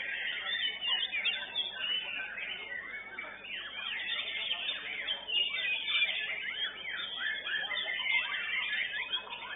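Several white-rumped shamas (murai batu) singing at once in competition cages: a dense, unbroken tangle of quick whistles, trills and chattering notes.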